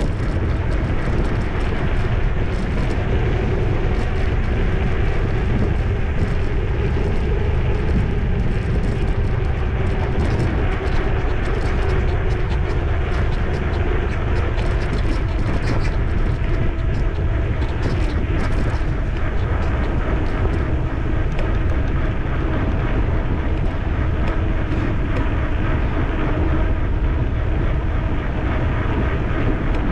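Steady wind rumble on the microphone of a camera riding along on a moving electric bicycle, deep and unbroken throughout.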